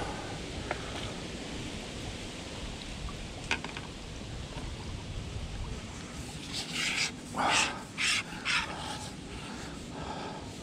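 A dog panting in a quick run of short, breathy puffs, about two a second, for a couple of seconds past the middle, over a faint steady hiss.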